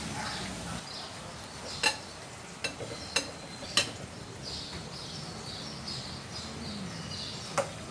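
Wood fire crackling in a wood-burning cookstove: a soft steady hiss with sharp pops, one about two seconds in, three more over the next two seconds, and another near the end.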